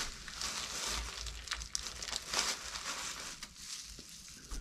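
Plastic wrapper of a ground beef package crinkling in a series of short bursts as handfuls of raw ground beef are pulled out of it.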